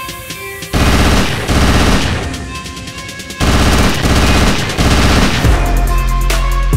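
Automatic gunfire sound effect, rapid shots in several bursts, over background music.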